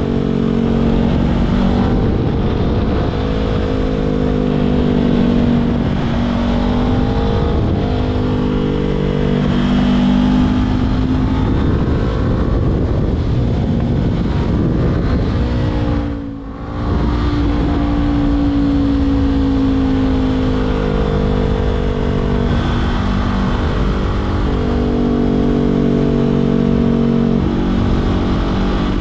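Honda CBR500R parallel-twin engine through an aftermarket LV10 slip-on exhaust under riding load. The note repeatedly rises and falls with throttle and gear changes, with a brief drop in sound about sixteen seconds in.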